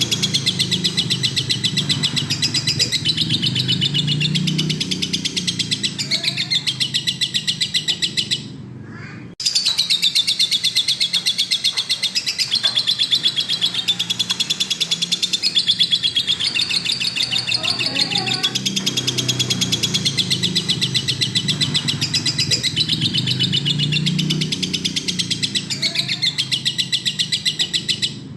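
Lovebird singing in full song, a long run of rapid, evenly repeated chattering notes. It breaks off briefly about eight seconds in, then starts again.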